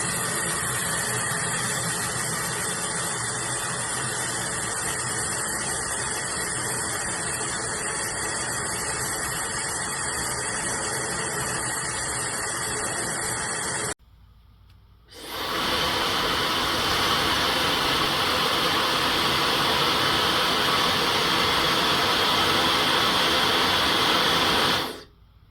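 Handheld high-speed ionic hair dryer blowing with a steady rushing of air. It stops about halfway, starts up again a second later, runs a little louder, and is switched off near the end.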